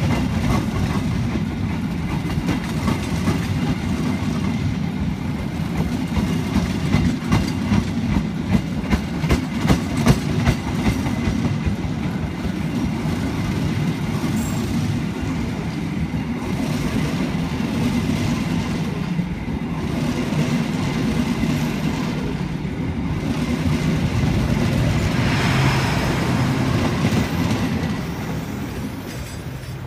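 Passenger train coaches rolling past close by: a steady rumble of wheels on rail, with a run of clickety-clack over rail joints at about two clacks a second. The sound fades near the end as the last coaches move away.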